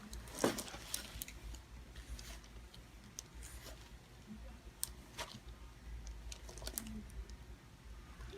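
Quiet handling sounds: faint scattered clicks and soft rustles, with a slightly louder click about half a second in.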